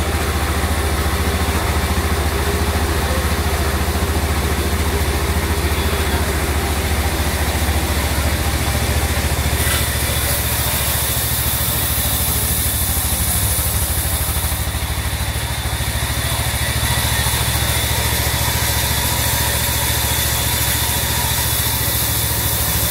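Band sawmill running with a steady low hum while its blade saws lengthwise through a thick teak plank. The high hiss of the cut grows louder for a few seconds about ten seconds in.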